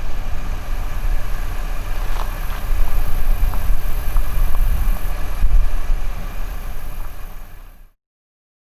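Low, steady rumble of a running vehicle with wind buffeting the microphone. It fades and cuts to silence near the end.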